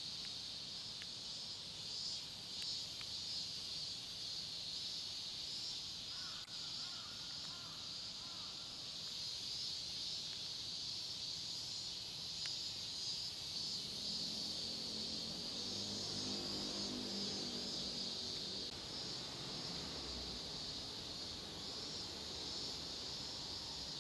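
Steady high-pitched chorus of insects. From about 14 to 20 seconds in, a lower pitched sound joins it.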